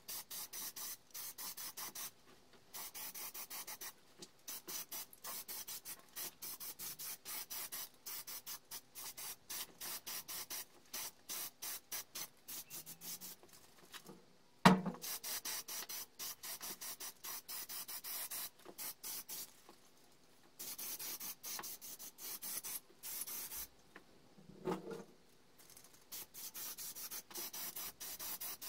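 Aerosol spray-paint can spraying in quick hissing pulses, with short pauses between passes. A single loud knock about halfway through, and a fainter one near the end.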